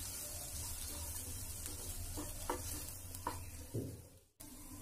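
Spatula stirring and scraping chopped vegetables in a non-stick kadai, with a quiet frying sizzle underneath, mixing in freshly added spice powder. A few short scrapes come in the second half, and the sound cuts out for a moment near the end.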